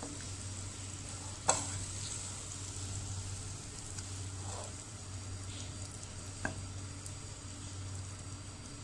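Wooden spoon scooping spinach-and-chicken curry out of a karahi onto a plate, over a soft, steady sizzle from the hot pan. There are a couple of sharp taps of the spoon, about a second and a half in and again near six and a half seconds.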